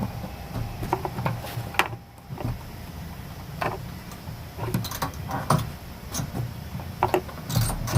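Scattered clicks and knocks of hands seating and locking a new fuel pump into a car's fuel tank, over a steady low hum.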